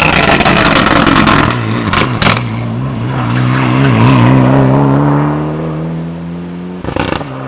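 Rally car going past flat out on a closed stage, loudest just as it passes, then pulling away with its engine note climbing steadily under hard acceleration. Two sharp cracks come about two seconds in, and another short burst comes near the end.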